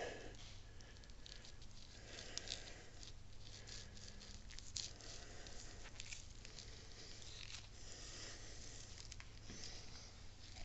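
Faint squishing and rustling as fresh grease is packed by hand into a Volvo Penta 290 outdrive's tilt-assembly housing, with scattered small clicks from handling the parts, over a steady low hum.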